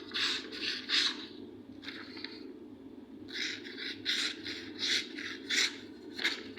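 Homemade EDC knife slicing through a sheet of paper: a quick run of papery swishing strokes, pausing briefly near the middle, over a steady low hum.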